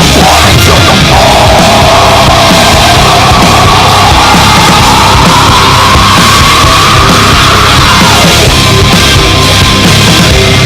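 Loud heavy metal music with distorted guitars and drums. From about a second in, one long held note rises slowly in pitch, then breaks off two to three seconds before the end.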